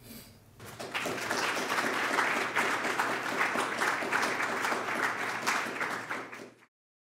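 Audience applauding. It starts about half a second in, then fades and cuts off just before the end.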